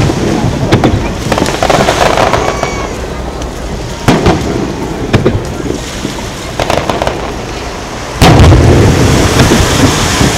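Aerial firework shells bursting, a series of sharp booms at irregular intervals. The loudest comes about eight seconds in and is followed by a long, low rumble.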